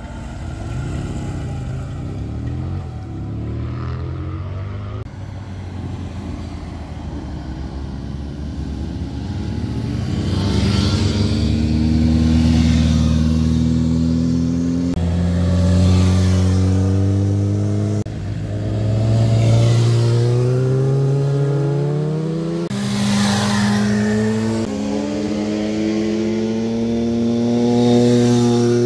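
Motorcycles riding past one after another, engines accelerating with a rising pitch that drops back at each gear change; the loudness swells and fades with each pass.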